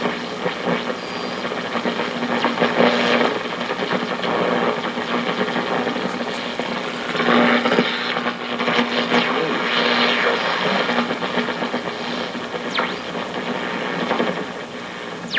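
1940 Philco 40-155 tube radio on the AM band, its speaker giving a steady hiss of static and buzzing with a low hum tone through it, as the set is tuned. The noise is radio-frequency interference, which the owner puts down to a Wi-Fi garage door opener.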